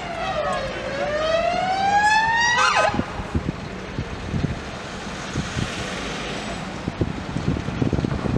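Police car siren on a slow wail, falling in pitch and then rising again, switched off about three seconds in. After it comes vehicle noise with wind on the microphone.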